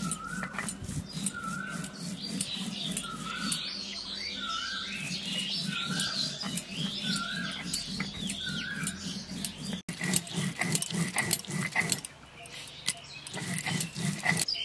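Stone roller grinding dried red chillies and spices on a flat stone slab, a rhythmic run of scraping and knocking strokes that grow denser and louder near the end. A bird repeats a short call about once a second for the first nine seconds.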